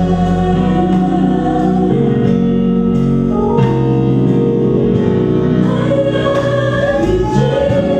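Mixed gospel vocal ensemble of men and women singing in close harmony through microphones, holding long chords that move to a new chord about three and a half seconds in.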